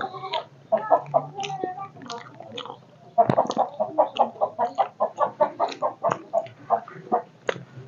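Chickens clucking: a few scattered calls, then a rapid, even run of short clucks about five a second from about three seconds in.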